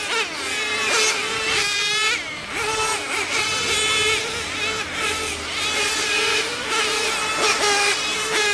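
Several nitro-powered RC cars' small glow engines racing around a track, their high-pitched buzzing pitch rising and falling over and over as they accelerate and brake.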